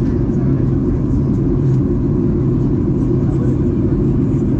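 Steady low rumble of a Boeing 737-800 airliner heard from inside the passenger cabin.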